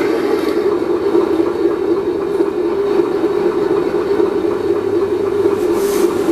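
Simulated engine sound from an RC sound module, played through the small speaker of a 1/10 scale Defender D90 model, running steadily, with a brief hiss near the end.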